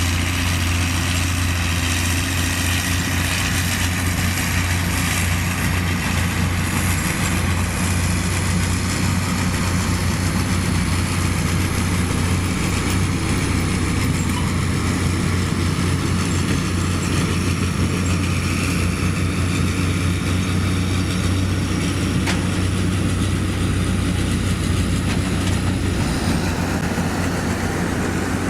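Heavy diesel construction machine engine running steadily with a constant low drone.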